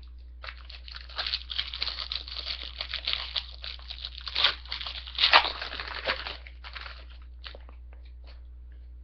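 Foil wrapper of a 2005 Parkhurst hockey card pack being torn open and crinkled: a dense crackling for about six seconds, sharpest about five seconds in, followed by a few light clicks.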